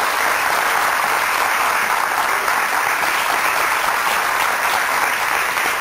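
Studio audience applauding steadily, a dense sustained clapping.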